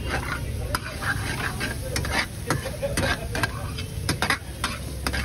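Steel ladle stirring diced vegetables in an aluminium pan, with irregular metallic clinks and scrapes against the pan over a light sizzle of frying. A steady low rumble runs underneath.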